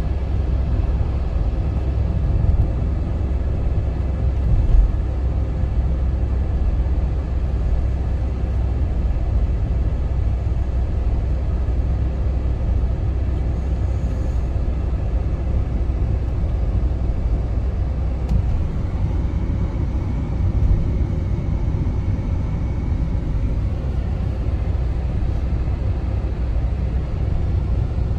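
Car interior road noise while driving: a steady low rumble of engine and tyres heard inside the cabin, with one brief bump about five seconds in.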